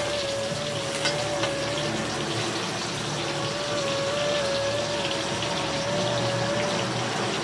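Oil sizzling steadily as pointed gourds (parwal) shallow-fry in a steel kadhai, with a long held note of background music over the hiss.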